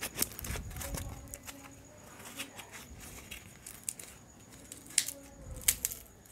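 Close-up crackling and tearing as a dry, crisp flatbread is torn by hand. A few sharp clicks follow near the end as the fingers reach into a steel bowl.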